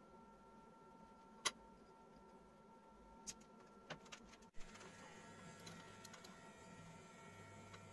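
Near silence with a few light, sharp clicks and taps, the loudest about one and a half seconds in: small steel bars and a marker being handled on a granite slab.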